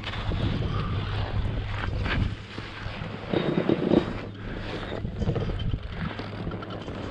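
Wind rushing over a skier's camera microphone mixed with skis swishing through fresh powder snow, uneven, with a louder burst of snow noise about three to four seconds in.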